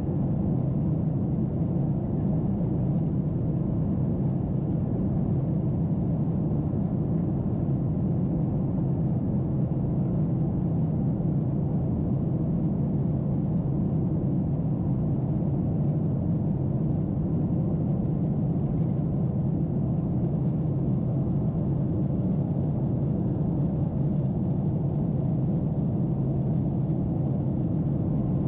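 Steady cabin noise inside a Boeing 747-8 climbing after takeoff: a deep, even rush of airflow and GE GEnx engines at climb power, unchanging throughout.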